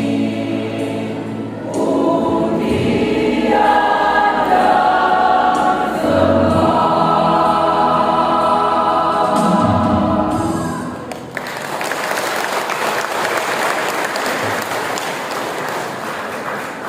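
Church choir singing long held notes until the song ends about eleven seconds in, then audience applause.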